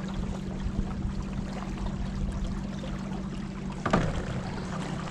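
Water rushing past a small boat on the river, under a steady low motor hum, with one brief sharp thump about four seconds in.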